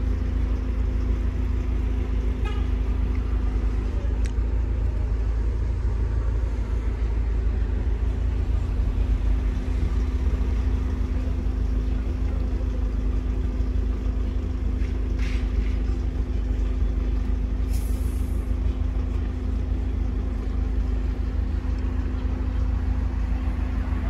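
Tofaş Doğan SLX's four-cylinder engine idling steadily, heard from inside the cabin as an even low drone through its aftermarket Varex exhaust. A few faint short ticks sound over it.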